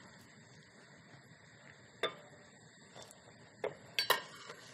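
A perforated metal spoon clinking against a saucepan and a glass bowl as blanched peas and squash are scooped out of the water: a handful of short, sharp clinks, the first about two seconds in and a quick cluster near the end.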